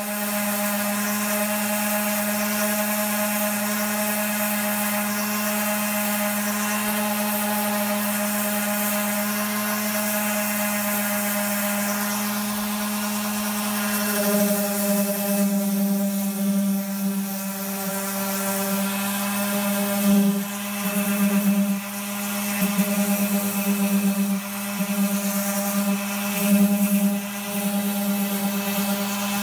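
Electric DeWalt random orbital sander switching on and running steadily, then sanding hardened body filler over a fibreglass wing patch. From about halfway in, its sound wavers and dips as it is pressed and moved across the surface.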